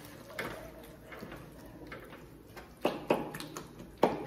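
Metal spatula stirring a thick masala paste in an aluminium kadai, scraping and tapping lightly, then clanking sharply against the pan a few times near the end.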